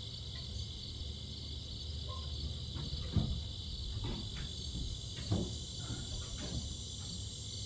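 Steady chorus of insects chirring outdoors, with a few dull knocks, the loudest about three and five seconds in.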